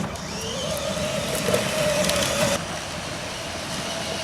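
A vehicle running with a steady hum. The background noise changes abruptly about two and a half seconds in.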